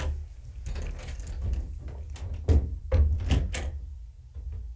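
A string of knocks and thuds at uneven intervals, the heaviest about two and a half to three and a half seconds in, over a low rumble, growing fainter near the end.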